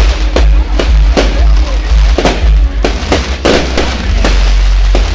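Fireworks going off in rapid succession, about three sharp bangs a second, over loud music with heavy bass.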